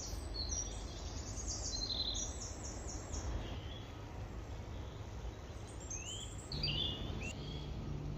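Small birds calling with quick, high chirps: a run of repeated notes in the first few seconds, then a few short rising notes about six to seven seconds in, over a steady low background noise.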